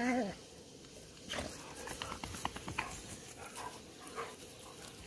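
Two dogs play-wrestling in the grass: soft snuffles, mouth sounds and scuffling, with a scatter of short clicks mostly in the middle.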